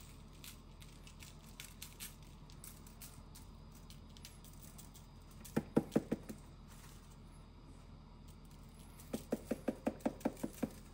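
Spice jar of chili powder being shaken, its contents knocking inside the jar: a short burst of about five sharp taps about halfway through, then a quicker run of about ten evenly spaced taps near the end, with faint ticks between.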